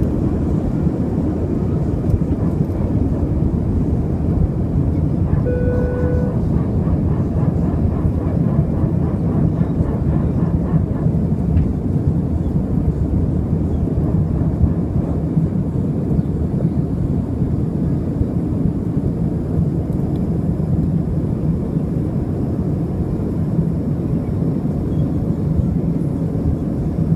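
Airbus A320 jet engines at takeoff power in the initial climb just after liftoff, heard inside the cabin as a steady low rumble. A short steady tone sounds about six seconds in.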